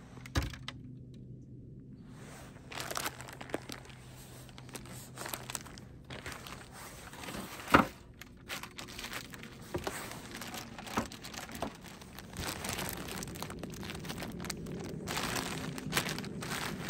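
Plastic water bottles and zip-top plastic bags handled and set on wooden shelves: crinkling of the bags, busier in the second half, with a few knocks as things are put down, the sharpest about eight seconds in.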